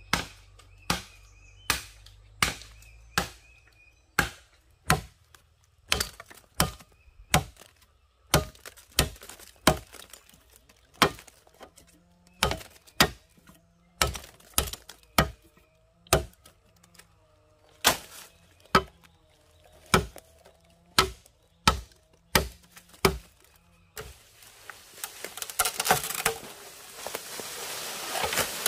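A blade chopping into wood, with sharp blows in a steady rhythm of about two a second. About 24 seconds in the chopping stops and a rustling, crackling noise follows.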